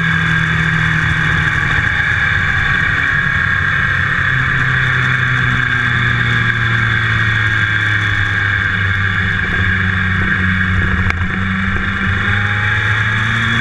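Motorcycle engine running at cruising speed, heard from a camera mounted on the bike, under a constant rush of wind and road noise. The engine note eases down a little over the first few seconds and picks up again near the end.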